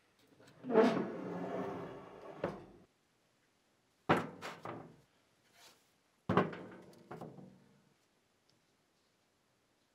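Three bouts of knocking and clatter as press parts are handled and set down in the workshop. The first and last are sharp hits that ring on for a second or two; the middle one is a quick run of clicks.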